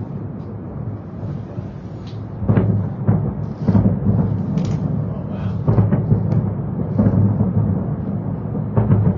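Aerial fireworks shells bursting at a distance: a run of sharp booms over a continuous low rumble, coming every second or so from about two and a half seconds in.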